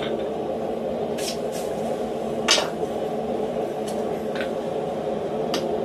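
A few light clinks of steel tools being handled on a steel slitting plate, tongs and a hammer set down and picked up, the loudest about two and a half seconds in, over a steady workshop hum.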